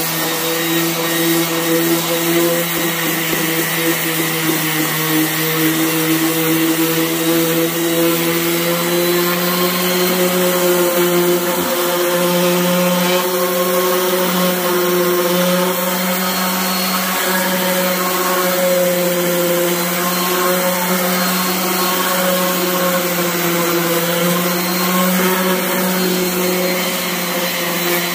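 DeWalt orbital sander running steadily with a 60-grit disc, sanding a metal band saw table top: an even motor hum with a few steady tones over the grinding of the abrasive.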